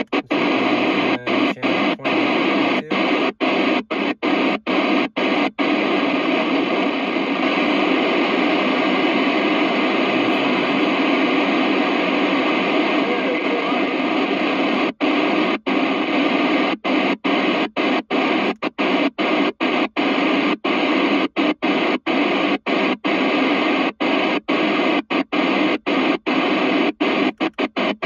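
CB radio receiver in FM mode giving a steady open-squelch static hiss, with no signal on the channel. The hiss is cut by many brief drop-outs as the channel is stepped, for the first five seconds or so and again through the second half, with an unbroken stretch of hiss in the middle.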